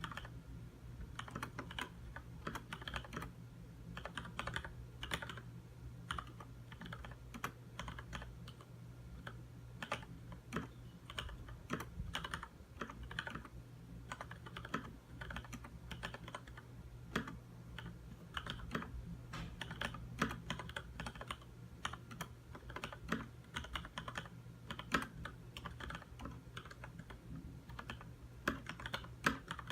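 Continuous typing on a Leopold FC900R mechanical keyboard with Cherry MX Red linear switches: a quick, irregular stream of keystroke clacks with occasional louder strikes.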